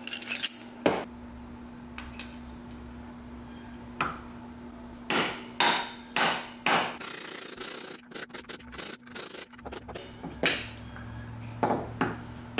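Hammer blows pounding a part of a homemade engine, converted from a refrigerator compressor, back into place: about ten separate knocks at irregular intervals.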